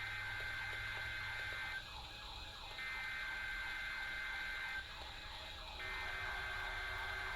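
Electronic alarm tone: a steady high beep in long pulses of about two seconds with a one-second gap, three times, over a fast repeating warble and a low hum.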